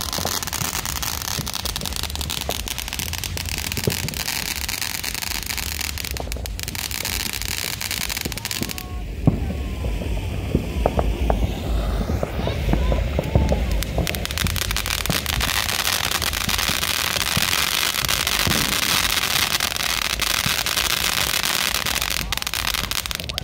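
Fireworks going off: continuous crackling and hissing with scattered sharp pops. The character of the crackle changes abruptly about nine seconds in.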